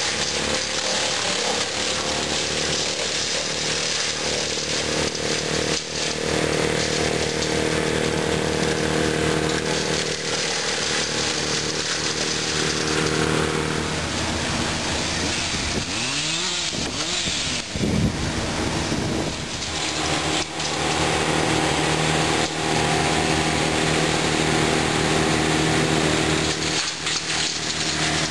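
Chainsaw and wood-chipper engines running steadily for storm clean-up, with an engine revving up and down a few times around the middle.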